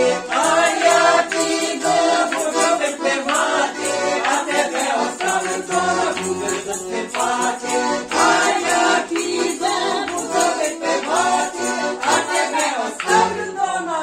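A small mixed group singing a Ukrainian folk song together, with a button accordion and a steady rattle of wooden shakers.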